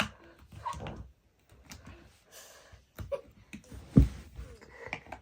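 Handling noises as batteries are worked into a baby rocker's plastic battery compartment: scattered small clicks and rustling, with one heavy knock about four seconds in.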